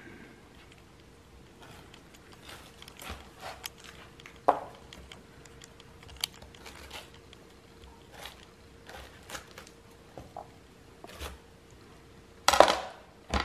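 Knife cutting the eyes out of a pineapple's rind: scattered short crunchy cuts and knocks, with a longer, louder crunch near the end.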